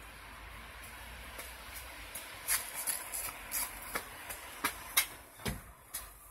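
Steady outdoor hiss, then from about two seconds in a run of about a dozen irregular, sharp clicks and crunches close to the microphone.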